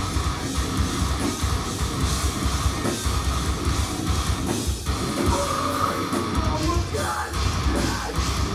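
Live heavy metal band playing loud: distorted electric guitars and bass over a fast, busy drum kit.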